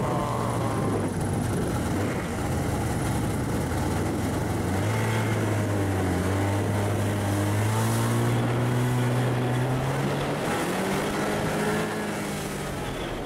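Snowmobile engines running at speed over snow. The engine pitch climbs steadily for several seconds as the throttle is held, then drops back and rises again.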